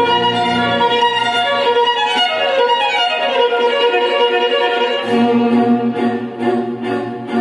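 Recorded violin music with a lower accompaniment, played back through a pair of loudspeakers being sound-tested. The violin line slides up and down in pitch through the middle, and a lower part comes back in about five seconds in.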